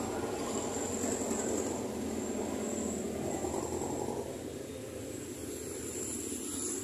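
Steady rumble of passing street traffic, easing off after about four seconds.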